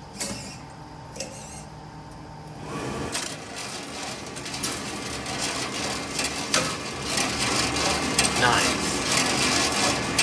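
Electrically driven mechanisms of a Rubasse coffee roaster working at the press of touchscreen buttons: first a few light clicks, then from about three seconds in a motorised whirring with rapid rattling clicks from the gates and the cooling tray's turning stirring arms, growing louder.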